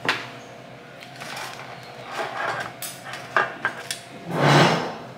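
Kitchen handling noises: a sharp knock as something is set down on the counter, then light clatters and knocks as a plastic mixing bowl of brownie batter is picked up and held over a metal baking pan, with a louder rush of noise near the end.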